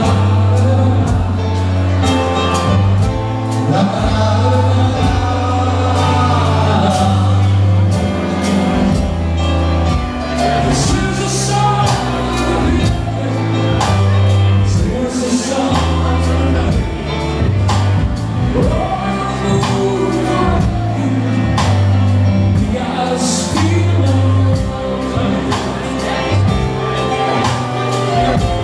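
Live song: a man singing at the microphone over stage piano, with a drum kit keeping a steady beat and cymbals ticking through.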